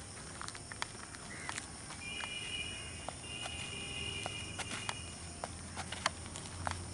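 Light, irregular footfalls on a packed dirt ground as a man jogs and skips with high knees. Insects chirp steadily in the background, and a high steady tone comes in twice in the middle.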